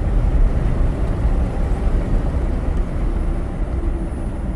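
Inside the cab of a 2005–06 Chevrolet Silverado pickup driving on a road: steady low rumble of engine and tyre noise. There is no grinding from the newly replaced hub bearing; it runs quiet.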